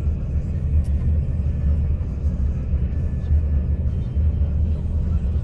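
Bus driving at motorway speed, heard from inside the cabin: a steady low rumble of engine and tyres on the road.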